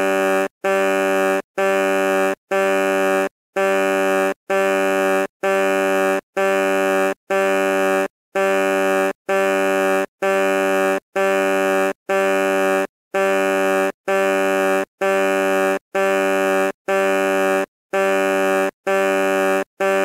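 Truck horn sounding in a steady run of short, identical honks, a bit more than one a second, each a low buzzy tone just under a second long, with a slightly longer pause after every six or so.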